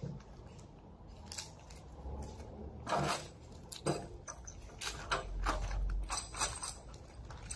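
Clear plastic wrapping film crinkling and crackling irregularly as it is handled and pulled off the machine.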